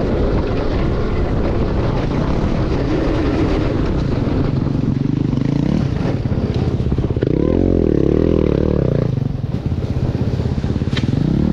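Yamaha dirt bike engine running while trail riding, the revs rising and falling with the throttle, with a wavering up-and-down rev about two thirds of the way through.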